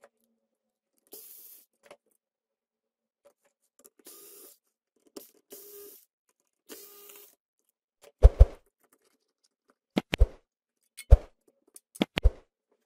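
Screwdriver backing out the screws that hold a switching power supply board in its sheet-metal case: four short rasping turns. From about eight seconds in come a series of sharp knocks as the loosened board and case are handled on the bench, and these knocks are the loudest sounds.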